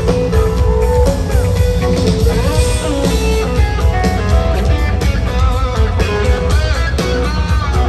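Live country-rock band playing through a stadium PA, led by guitar over drums and bass, recorded from within the crowd.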